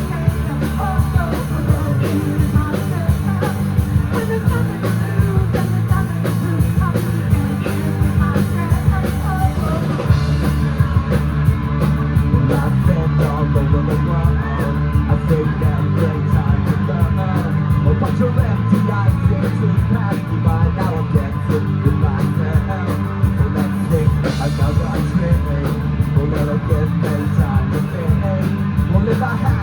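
Rock band playing live, with guitars, bass and a drum kit keeping a steady beat. The bright top end of the mix drops away for a stretch in the middle and comes back near the end.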